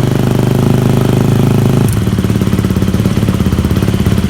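Yamaha WR250F's 250 cc four-stroke single-cylinder engine running through a newly fitted FMF 4.1 RCT silencer and mid pipe, just after its first start. It runs at a raised speed, then about two seconds in drops to a lower idle with more distinct exhaust beats.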